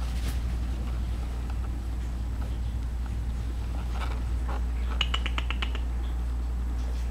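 Burmese cat giving a quick chattering trill, a rapid run of about ten clicky pulses lasting under a second, about five seconds in, with a few fainter short sounds before it, over a steady low hum.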